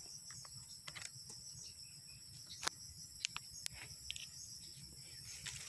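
Steady high-pitched chorus of insects, with a few sharp clicks and rustles of twigs and leaves being brushed through in undergrowth, the sharpest about two and a half seconds in.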